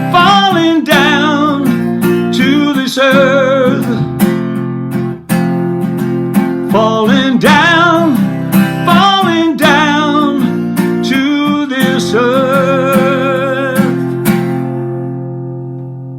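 Acoustic guitar strummed in a slow blues feel, with a voice singing held, wavering wordless notes over it; the song ends on a final chord that rings on and fades.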